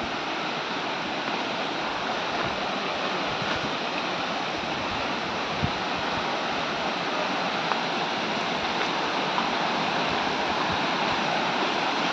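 Steady rush of water from Kadamagundi Falls, a forest waterfall, growing slightly louder, with a faint knock about six seconds in.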